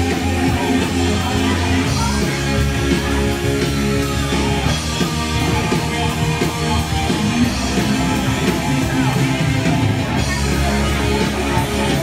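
Loud rock music with a singing voice over guitar and a steady backing.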